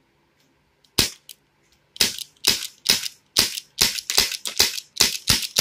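Elite Force H8R airsoft revolver fired double-action: a single sharp pop about a second in, then a fast string of pops, about two to three a second.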